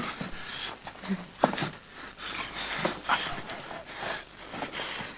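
A man's heavy, irregular breathing: short panting breaths and gasps, about two a second, with a few brief low voiced sounds.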